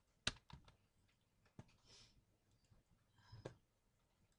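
A few faint, sharp computer keyboard and mouse clicks, the loudest about a third of a second in and a small cluster near the end, with a brief soft hiss about two seconds in.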